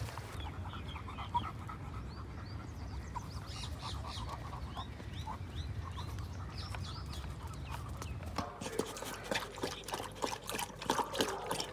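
Steady low wind rumble on the microphone with short bird chirps. About eight and a half seconds in it gives way to a spaniel at its steel bowls, making quick wet clicks and smacks as it laps and chews.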